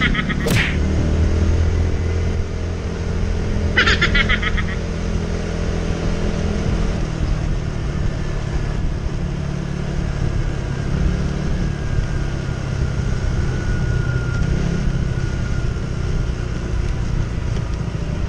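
Small motor scooter's engine running steadily as it is ridden at low speed, with wind and road noise on the helmet microphone. A short high call cuts through about four seconds in.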